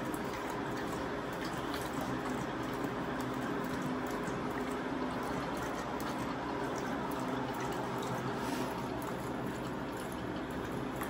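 Bengal tigress lapping water from a metal basin, soft wet lapping and dripping over a steady background hum.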